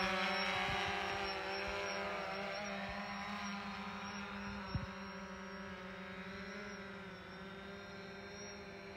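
DJI Phantom 4 Pro quadcopter's propellers humming steadily, fading as the drone flies away. A single brief knock about halfway through.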